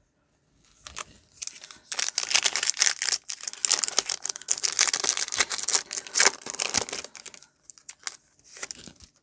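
A foil trading-card pack wrapper being crinkled and torn open, a dense crackling from about a second in until about seven and a half seconds, with a few short crinkles near the end.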